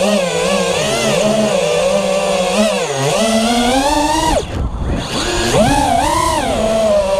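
Brushless motors and propellers of a small FPV racing quadcopter whining, heard close from the onboard GoPro, the pitch rising and falling with the throttle. About four seconds in the whine climbs sharply, then cuts out for about a second, leaving a rush of air, before the motors spool back up.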